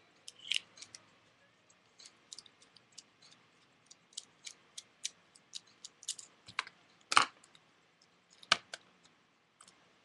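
Small screwdriver working the screw out of a Master Lock padlock to take it apart: a run of light metal clicks and scrapes, with two louder knocks in the second half.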